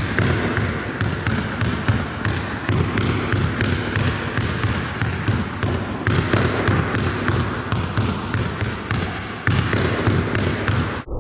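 Basketball dribbling: a ball bouncing again and again on a hard floor, a few bounces a second.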